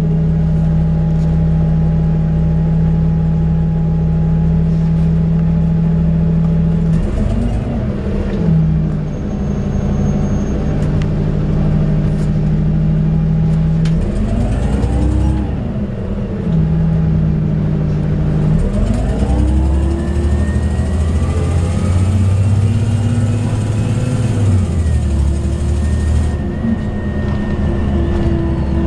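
2004 Orion VII CNG transit bus's engine running under way, a steady drone whose pitch sweeps up and drops back three times as the bus speeds up and shifts.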